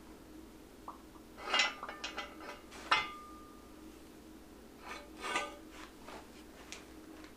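Metal clinking and knocking as a motorcycle swing arm is handled and worked onto the rear wheel's final drive: a clatter about a second and a half in, a sharp clank near three seconds that rings briefly, and another cluster of clinks a little after five seconds.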